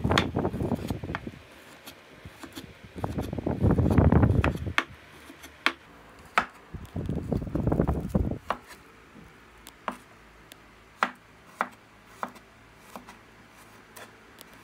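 Kitchen knife slicing garlic cloves on a wooden cutting board: sharp, irregularly spaced knocks of the blade on the board. In the first half there are three longer, louder stretches of scraping and handling noise.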